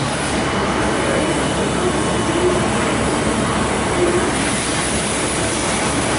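Okuma MACTURN 30 CNC turning centre running with a steady rushing noise.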